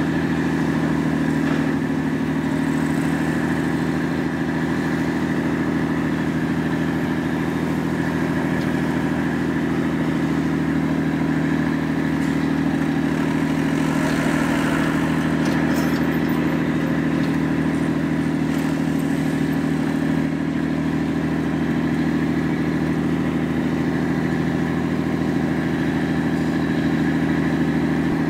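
A vessel's diesel engine running steadily at constant speed: a low drone made of several steady tones.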